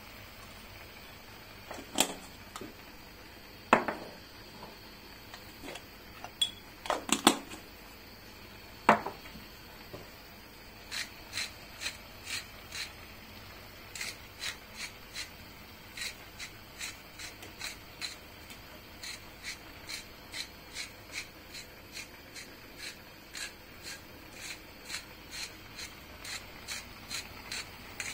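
Kitchen utensil work during cooking: a few loud knocks in the first part, then a steady run of lighter taps, about two a second, over a low steady background hiss.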